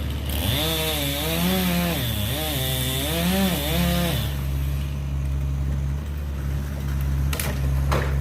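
Diesel land-clearing machine running with a steady low drone. For about the first four seconds its pitch swings up and down over a hiss, then it settles back to a steady run. A couple of sharp cracks come near the end.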